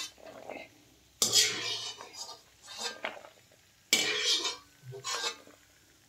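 Wire-mesh spider skimmer scraping and knocking against a steel kadai while fried cashews are scooped out of ghee. Two louder strokes come about a second in and about four seconds in, with a few lighter knocks between.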